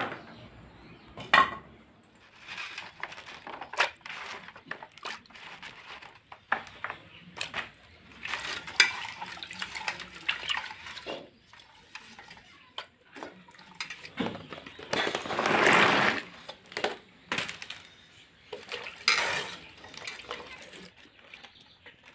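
Kitchen utensils knocking and scraping against metal pots and pans during cooking, with irregular clinks throughout and a louder rushing stretch of about two seconds past the middle, like water or liquid being handled.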